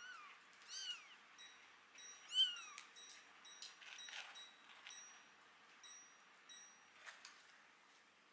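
Kitten mewing three times in the first few seconds, short high calls that rise and fall in pitch, the third the loudest. Faint light clicks follow as it moves about in pellet litter.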